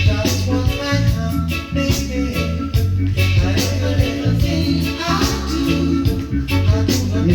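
Reggae music playing, with a heavy bass line and a steady beat.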